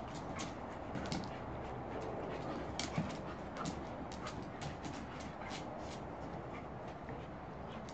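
A Bouvier des Flandres and a golden retriever play-fighting on paving stones: scuffling, with many short sharp clicks throughout.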